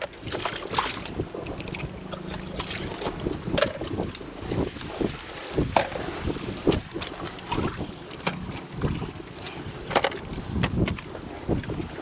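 Wind buffeting the microphone in a low rumble, with irregular sharp clicks and knocks scattered throughout.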